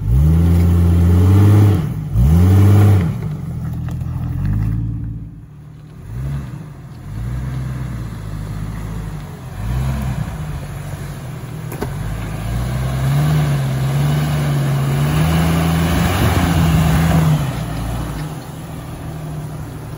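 Lifted Jeep Cherokee XJ's engine revving in short rising-and-falling bursts as it crawls over rock ledges. About twelve seconds in, it holds a steadier, higher note for several seconds under load as the Jeep climbs, then eases off near the end.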